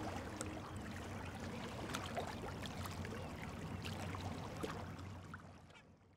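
Soft water ambience, gentle lapping and trickling with small splashes, fading out near the end.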